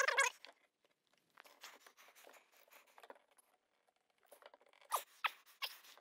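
A hand-turned pipe cutter with blades cutting through PVC central vacuum pipe inside the wall: soft, irregular scraping and rasping of the blades on the plastic, with a few louder scrapes about five seconds in.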